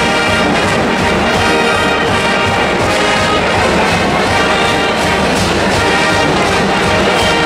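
A college marching band playing a brass tune, with sousaphones, horns and a steady drum beat underneath.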